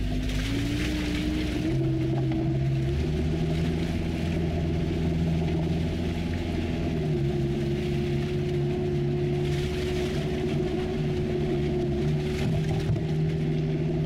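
Engine of an off-road all-terrain vehicle driving steadily over a muddy forest track, heard from inside the cab. Its pitch climbs a little in the first couple of seconds, then holds level.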